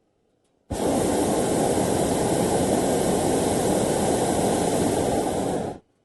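Balloon taking off: a steady rushing roar with no clear pitch, lasting about five seconds, that starts and stops abruptly.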